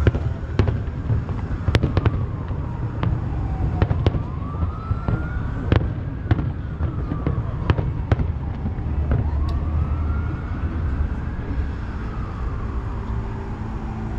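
Aerial fireworks going off: sharp bangs at irregular intervals, thinning out toward the end. Behind them a siren wails slowly up and down.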